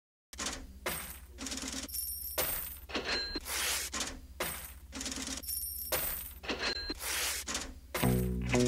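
Background music with a steady low drone under a beat of short noisy, clinking hits about twice a second; fuller pitched music comes in near the end.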